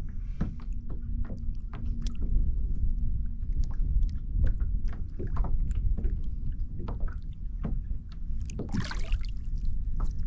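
Sounds of a kayak on the water: many small knocks and clicks against the hull over a steady low rumble, with a louder rush of noise about nine seconds in.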